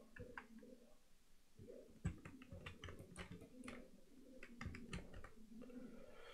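Faint, scattered clicks of computer keyboard keys being tapped, most of them between about two and five and a half seconds in.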